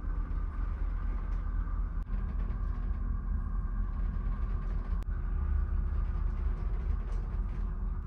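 Steady low rumble and hum of a large ferry's engines and machinery while under way, heard inside a passenger cabin.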